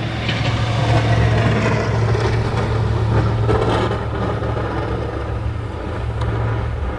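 Snowplow truck's engine running steadily with a low hum, under a rushing haze of wind noise.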